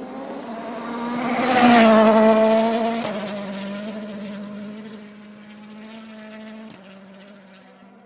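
A rally car passing at speed, its engine note held at steady revs, loudest about two seconds in and then fading away as it drives off.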